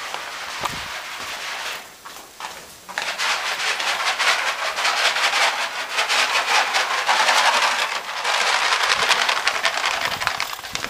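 A box of dry cat kibble being shaken, the kibble rattling in a dense, rapid rattle. It pauses briefly about two seconds in, then starts again louder.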